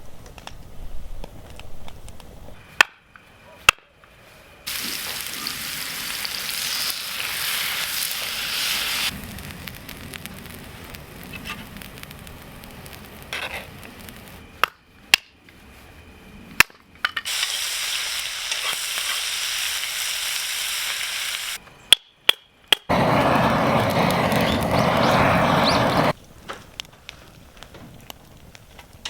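Food sizzling in a pan over a camp fire, heard in several short clips that start and stop abruptly, with a few sharp snaps in between.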